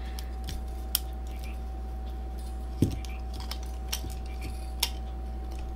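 A few scattered sharp clicks and taps of small camera parts and a screwdriver being handled, with a slightly louder knock about three seconds in, over a steady low hum.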